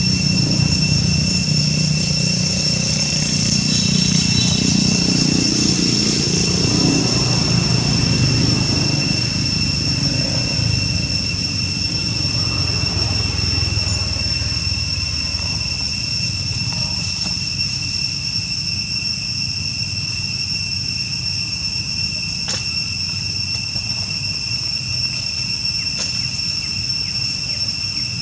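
A steady, high-pitched insect drone, with a low rumble under it that is strongest for the first ten seconds or so and then fades.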